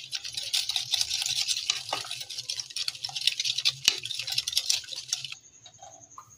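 Stainless wire balloon whisk beating eggs and sugar in a ceramic bowl: rapid clicking and swishing of the wires against the bowl, which stops suddenly about five seconds in.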